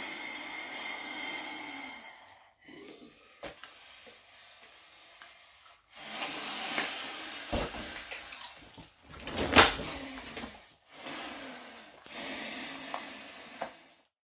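Heavy breathing through a rubber gas mask, wheezing through its valves, then breathing through a latex hood, in separate stretches with short gaps between them. A sharp snap about nine and a half seconds in is the loudest sound.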